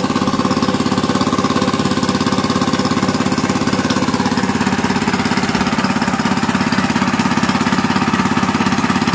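Small engine running steadily at constant speed with a fast, even chugging pulse, driving the pump that drains the fish pond.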